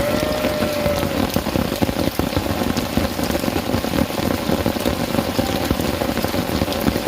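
Steady rain falling and pattering on surfaces, a dense, even hiss full of individual drop ticks.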